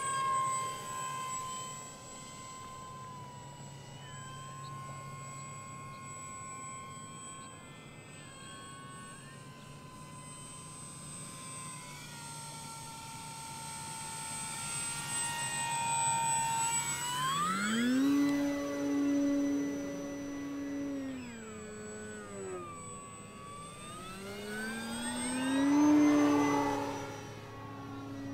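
Electric brushless motor and propeller of an FMS PA-18 Super Cub 1700mm RC airplane whining in flight. The pitch jumps up sharply about two-thirds of the way in as the throttle is opened, falls back, then rises again to its loudest near the end.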